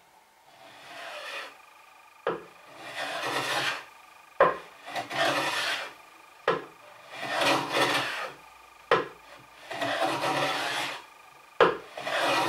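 Hand plane taking light cuts along the bevelled edge of a wooden board: about six strokes roughly two seconds apart, each starting with a sharp knock as the plane lands on the wood, then the shaving sound of the blade.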